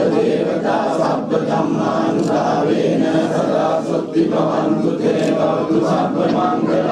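Group of Theravada Buddhist monks chanting offering verses in unison, many male voices together in a steady, continuous drone.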